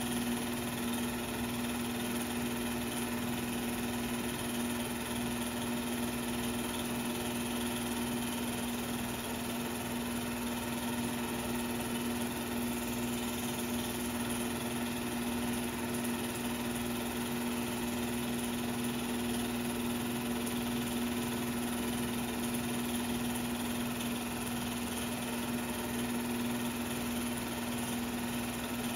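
Steady mechanical hum at one unchanging pitch, from the equipment running the 16mm film transfer.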